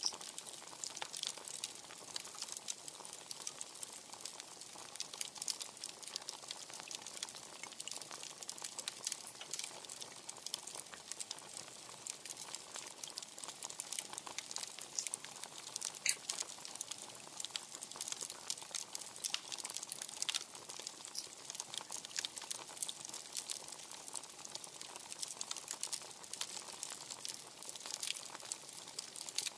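Wood fire crackling steadily, with many small irregular pops and snaps over a soft hiss.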